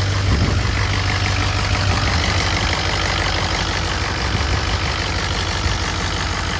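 Freshly rebuilt Ford Powerstroke V8 turbo-diesel idling steadily, with air escaping from the exhaust. The leak comes from the empty EGT sensor port.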